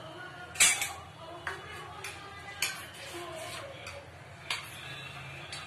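A few sharp clinks and taps of metal kitchen utensils, irregularly spaced, the loudest about half a second in.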